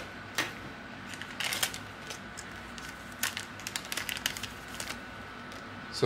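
Small cutting snippers clicking as a package is opened, then crinkling and light handling clicks as a circuit board is taken out: a sharp click about half a second in, a cluster of clicks around a second and a half, another near three seconds, then lighter ticks.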